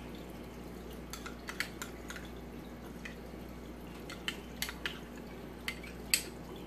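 Scattered light clicks and taps of a spoon and cup against a glass baking dish while gravy is poured over pork chops, with soft drips, over a faint steady hum.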